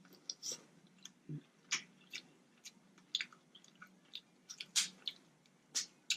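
Close-miked eating: a mouthful of sauced seafood being chewed, with a dozen or so short, wet mouth clicks and smacks at an irregular pace.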